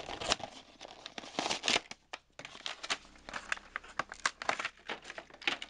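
Crinkling and crackling of a clear plastic blister pack on a Hot Wheels card as it is handled, a run of irregular crackles with a brief pause about two seconds in.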